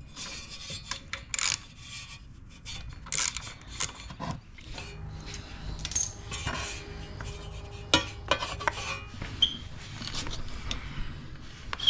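Hand tools clinking and scraping against metal as bolts are worked loose on a Honda CRF50 mini dirt bike, in scattered short metallic clicks and knocks.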